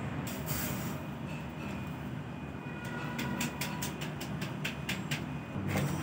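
Steady low machine hum, with a quick run of about ten sharp clicks between three and five seconds in.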